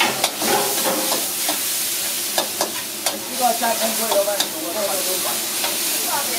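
Stir-frying in a wok: a metal spatula scrapes and clinks against the pan at irregular strokes over a steady sizzle of onions and garlic frying in a thin sauce.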